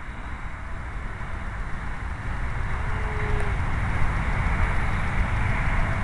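Wind buffeting the microphone: an uneven low rumble with a hiss over it, slowly building.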